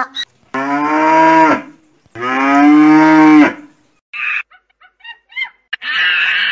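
Two long cow moos, one after the other, each lasting about a second and falling in pitch at the end, followed by a few short, fainter high-pitched calls.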